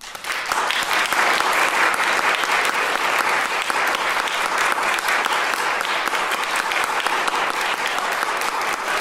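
Audience applause that breaks out suddenly at the end of a piece and goes on as steady, dense clapping.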